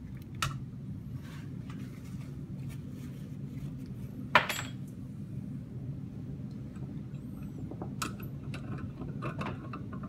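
Glass and metal lab equipment clinking and knocking as it is handled on a bench, with one sharper clink about four seconds in, over a steady low hum.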